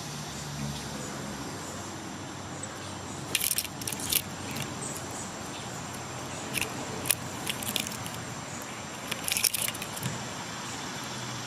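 Birds at a feeder of fruit and nuts: several clusters of short, sharp clicks and ticks over a steady outdoor hiss.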